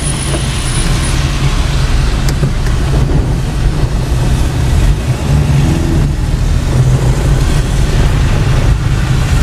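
Car driving on a rain-soaked road, heard from inside the cabin: a steady low engine and road rumble with a hiss of tyres on the wet surface.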